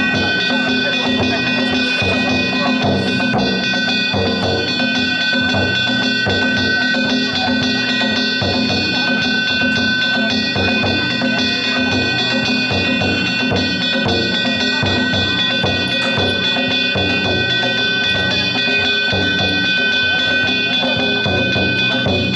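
Danjiri festival music: taiko drums beaten in a fast, steady rhythm together with metal kane gongs, whose ringing carries on under the drumming.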